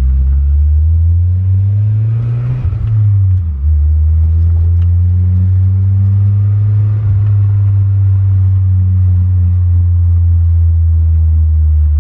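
Nissan pickup's four-cylinder engine heard from inside the cab while driving: the revs climb for about three seconds, drop at a gear change about three and a half seconds in, then the engine runs steadily at cruising speed.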